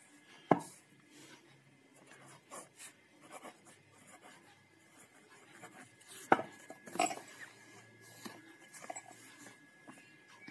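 Pen writing on notebook paper: soft scratching strokes, with a sharper knock about half a second in and another about six seconds in.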